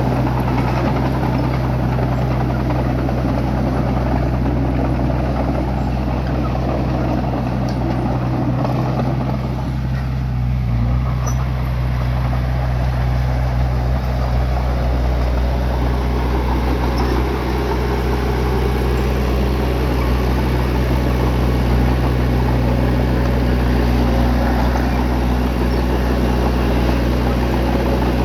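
Bulldozer's diesel engine running steadily with a deep, even drone. It eases off briefly about ten seconds in.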